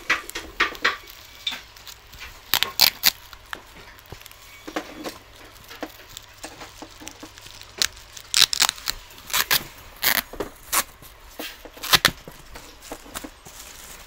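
Clear plastic wrapping sheet crinkling and rustling as it is handled and pulled off a cardboard carton, in irregular crackles, some sharp and loud.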